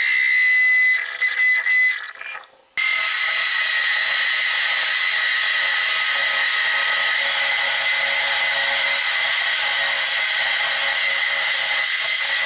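Metal lathe running, its tool taking a taper cut along a metal workpiece turned between centres with the tailstock offset: a steady high-pitched whine with hiss. The sound fades out briefly about two seconds in and comes straight back.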